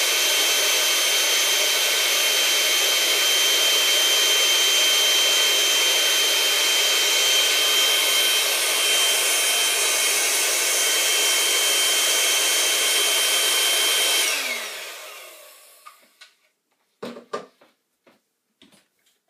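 Small electric air pump sucking the air out of a 6-foot vinyl beach ball, running steadily with a high whine. It is switched off about fourteen seconds in and spins down with a falling pitch, followed by a few short clicks and rustles.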